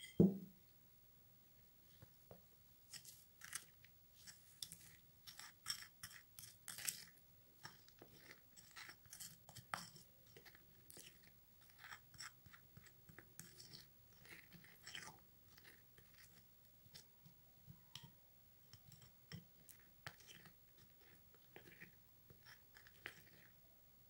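Plastic spoon stirring instant coffee granules into a thick paste in a small glass bowl: quick, irregular scrapes and clicks against the glass. A single knock right at the start.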